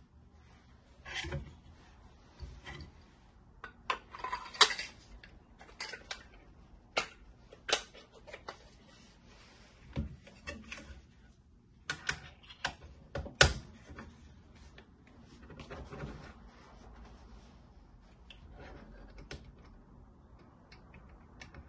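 Hands handling hard machine parts: an irregular string of clicks, knocks and light rattles, with two sharper knocks about four and a half and thirteen and a half seconds in. The sounds get sparser and softer near the end.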